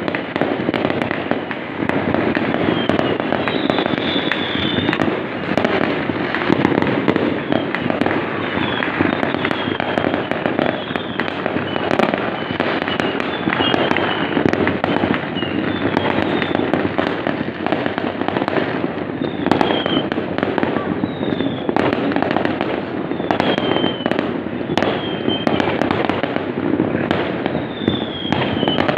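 Fireworks going off without pause: a dense run of bangs and crackles, with short falling whistles every second or two.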